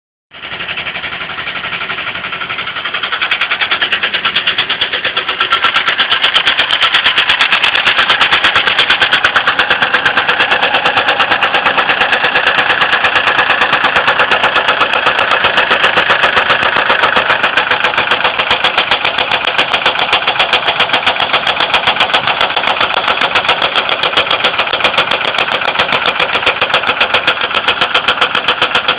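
Ford Windstar 3.8L V6 engine running with a rapid, even knocking and tapping, louder from a few seconds in. The engine oil is raised in level and milky light brown, which the owner suspects is coolant mixed into the oil.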